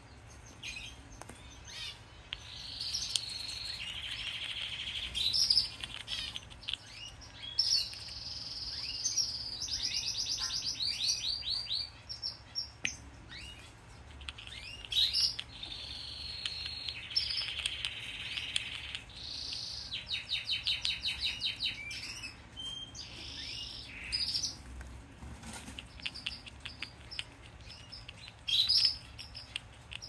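Canary singing: long phrases of fast trills and rapid repeated notes, one phrase after another with short gaps.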